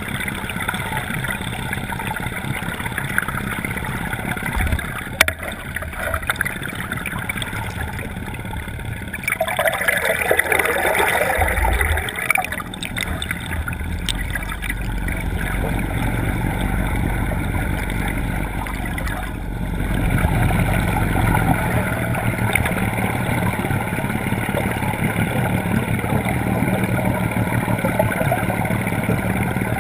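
Motorboat running, with water rushing and gurgling close by; the rushing swells louder for a couple of seconds about ten seconds in, and there is a single sharp click about five seconds in.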